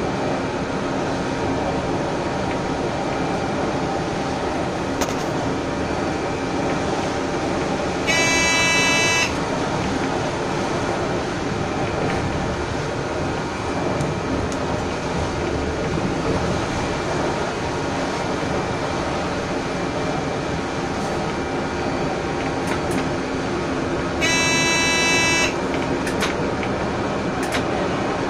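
Steady running noise of a train moving along the track, heard from on board. A short, high tone sounds twice, about sixteen seconds apart, each lasting about a second.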